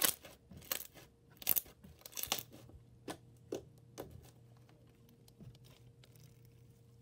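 Foam-bead slime squeezed and stretched by hand, the foam beads crunching and popping in a quick irregular run of crackles for the first few seconds, then a few fainter scattered pops.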